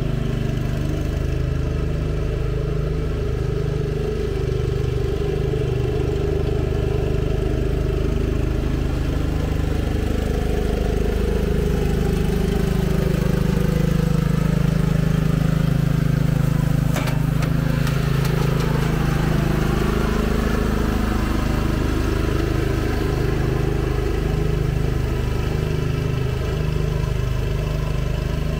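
Cub Cadet CC30H riding lawn mower running steadily while mowing grass. It grows louder as it comes closest about halfway through, then fades as it moves away.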